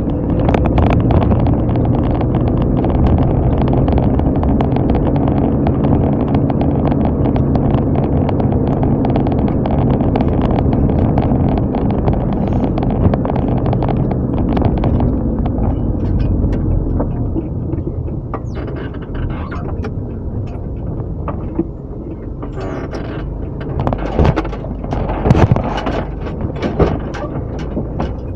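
Car driving, a steady engine hum with road noise that eases off about halfway through, and a few sharp knocks near the end.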